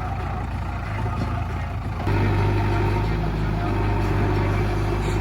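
Diesel engine of a JCB 3DX backhoe loader running steadily, growing louder and fuller about two seconds in as it takes up more throttle or load.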